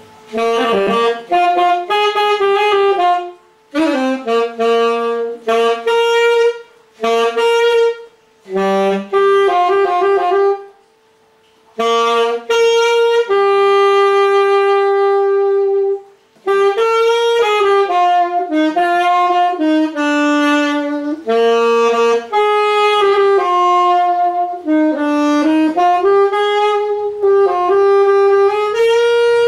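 Yamaha YAS-280 alto saxophone with its standard 4C mouthpiece playing a slow melody, one note at a time, in phrases with short breath breaks between them and a long held note near the middle.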